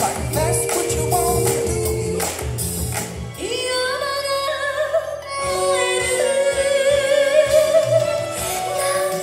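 Recorded music played over a pair of small PA speakers on stands: a song with a steady beat, then a singer holds a long sung note from about three and a half seconds in, and the beat drops out under it and comes back about two seconds later.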